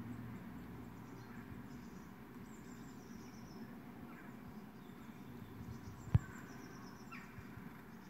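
Faint bird chirps and short whistled calls from a bird video playing through computer speakers, over a low steady hum. A single sharp knock about six seconds in is the loudest sound.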